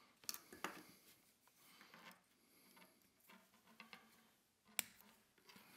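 Faint clicks and rustles of small metal rail being handled, then one sharp snap about five seconds in as flush-cutting nippers cut through a Micro Engineering code 83 model rail.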